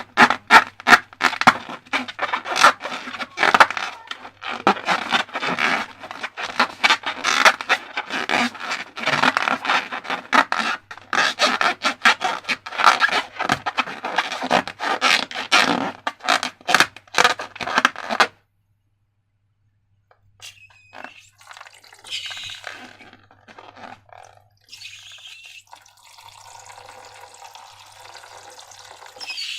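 Sticky slime being stirred and squished, a fast irregular run of wet clicks and pops. It stops suddenly, and after a short silence a softer wet pouring and dripping follows.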